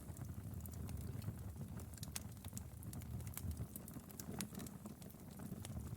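Wood fire crackling, with a soft low rumble under frequent, irregular sharp pops and snaps.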